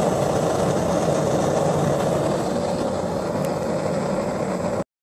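Propane gas forge with a T-Rex burner running at low pressure (about half a bar) during its first firing: a steady, low rushing noise of the burner flame, cutting off abruptly near the end.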